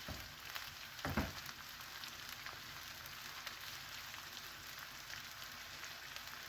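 Bell pepper, onion and carrot sizzling in oil in a frying pan, with a steady crackle. There are two brief louder thuds near the start, one right away and one about a second in.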